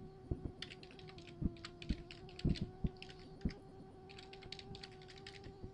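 Computer keyboard typing: keystrokes come in several short runs, over a faint steady hum.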